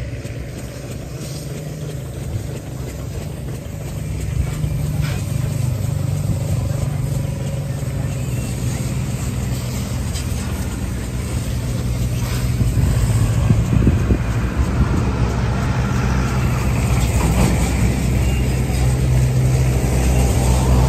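JCB backhoe loader's diesel engine running steadily, a low drone that grows louder about four seconds in and again around thirteen seconds.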